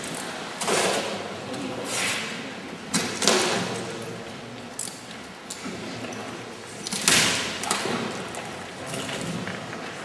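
Large painted board panels of a wheeled cabinet structure being pulled open and swung into place by hand: a few short scrapes and knocks, the loudest about seven seconds in.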